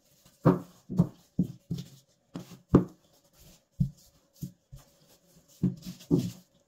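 Wooden rolling pin rolling out bread dough on a silicone baking mat: about ten dull thuds and knocks at uneven intervals as the pin goes back and forth over the dough and is set down.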